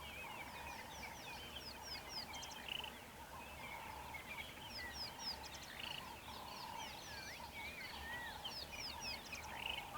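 Several wild birds calling at once: many quick, high chirps that fall in pitch, mixed with whistled, looping notes.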